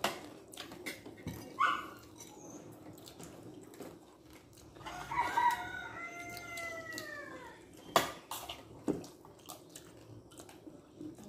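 A spoon clinking on plates and quiet eating sounds, with a rooster crowing once in the background: one long call that arches and falls in pitch, about five seconds in. A sharp clink about eight seconds in is the loudest sound.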